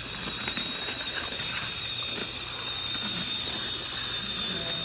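1/24-scale Axial SCX24 pull truck's Micro Komodo brushless motor and drivetrain giving a steady high whine while dragging a weighted pulling sled under load, with faint mechanical clicking.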